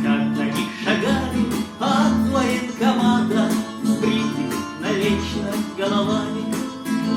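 Instrumental backing track playing the song's closing bars: strummed acoustic guitar over a bass line, with a steady beat about twice a second.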